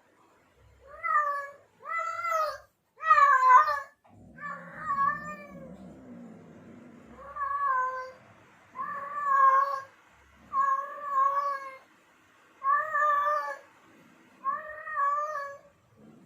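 A tomcat in heat yowling its mating call over and over, about nine long, wavering cries, each lasting about a second.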